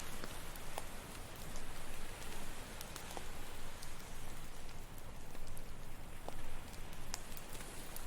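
Campfire crackling with sharp, irregular pops over a steady wash of ocean waves on the shore.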